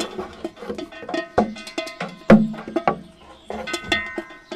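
Irregular clanks and knocks on metal saucepans and a watering can as a dog nudges and licks at them, the pans ringing on after each hit. The loudest clank comes a little past two seconds in.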